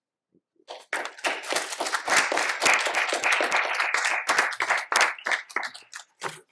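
Audience applauding. It starts about a second in, thins out to scattered claps near the end and then cuts off abruptly.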